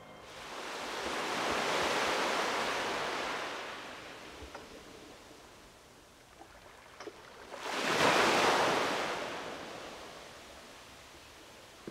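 Ocean surf washing in twice: one wave swells and fades about two seconds in, and a louder one about eight seconds in, with a few small clicks between.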